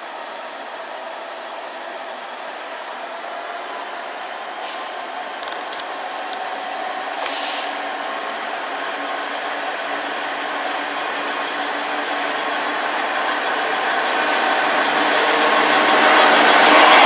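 British Rail Class 66 diesel-electric locomotive approaching and running past, its EMD two-stroke V12 engine growing steadily louder to its loudest as it passes. A short high hiss comes about seven seconds in.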